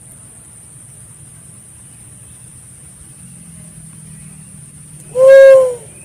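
Pink-headed fruit dove giving a single cooing note about five seconds in, under a second long and falling slightly in pitch as it ends, over a faint steady high-pitched hiss.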